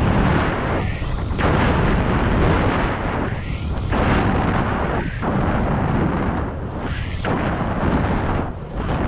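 Wind buffeting the microphone of a camera on a road bike riding at speed: a loud, rumbling rush that dips briefly several times.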